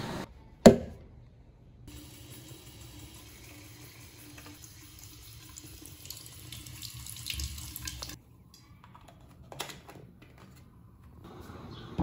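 Water running from a bathroom tap into a plastic bottle, filling it; the flow stops abruptly about eight seconds in. A single sharp click, the loudest sound, comes just before the water starts.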